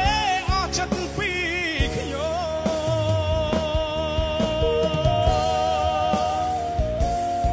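A Khmer-language pop song: a singer's short wavering phrases give way, about two seconds in, to one long held note over instrumental backing.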